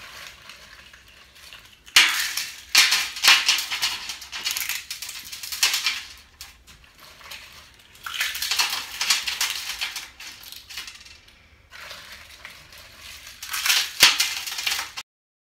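Eggshells crushed by hand onto a metal baking sheet: dry crackling crunches of breaking shell in three spells, starting about two, eight and twelve seconds in. The sound cuts off suddenly near the end.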